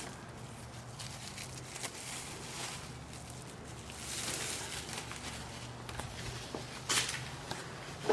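Quiet handling noises from fitting an air filter into a car's plastic airbox: soft rustling and scraping, with a sharp click about seven seconds in and a louder knock at the very end.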